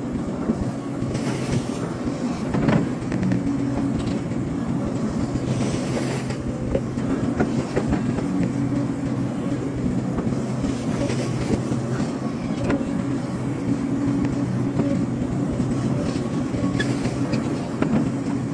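Hydraulic excavator's diesel engine running steadily, with scattered clanks and knocks throughout.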